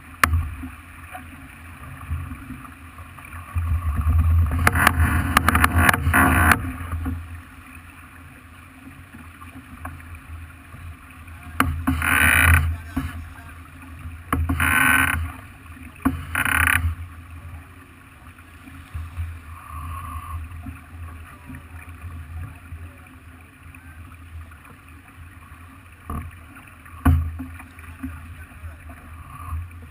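A Farr 40 racing yacht under sail: a steady low rush of wind and water. A louder whoosh swells up a few seconds in and lasts about two seconds, and three shorter whooshes follow around the middle.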